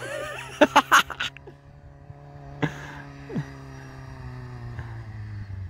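Off-road 4x4 engine running steadily while the vehicle pushes through deep snow, its pitch easing down slowly. A few sharp cracks come near the start and a single sudden knock about halfway through.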